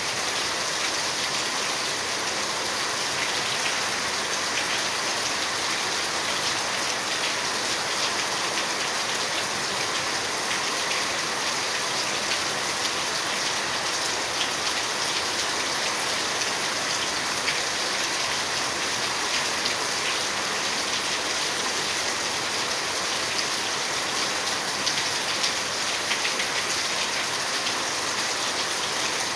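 Steady rain falling, a dense patter of drop hits that keeps up without let-up.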